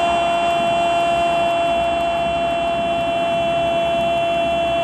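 A football commentator's long, drawn-out goal cry ("Gooool") held on one steady pitch over stadium crowd noise.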